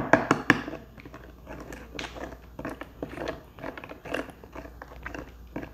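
Metal spoon stirring melted butter spread in a plastic tub: quick, irregular clicks and scrapes of the spoon against the tub's sides and bottom.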